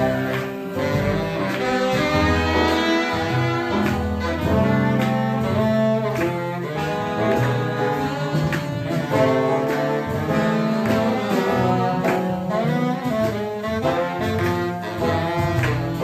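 Live swing jazz band playing, a saxophone carrying the melody over piano and a steady beat.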